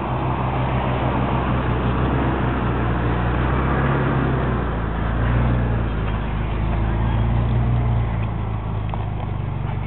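Jeep Wrangler engine running at low revs as the Jeep crawls over rock ledges, its pitch rising and falling slightly, under a steady rushing noise.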